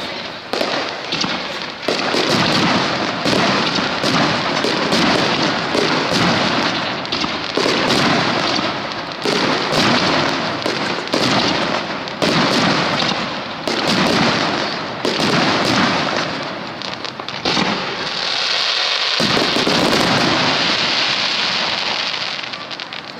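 Starmine fireworks barrage: aerial shells bursting in rapid succession, one sharp report after another, with no let-up. Near the end the reports thin out into a few seconds of steady high hiss before the sound dies away.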